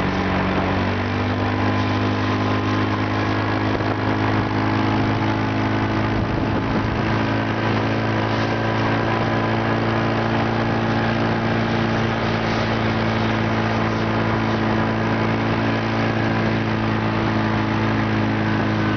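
Engine of the vehicle towing a sled on a rope, running at a steady low speed with an even hum that shifts slightly about a second in, under a steady hiss of wind and tyre noise on the snowy road.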